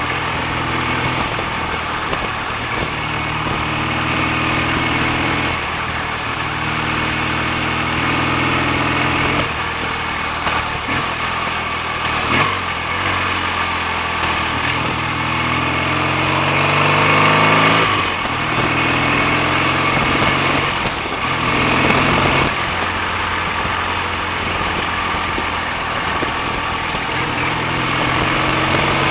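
BSA A65 650 cc parallel-twin motorcycle engine under way, its pitch climbing as it pulls and dropping back at each gear change, several times over.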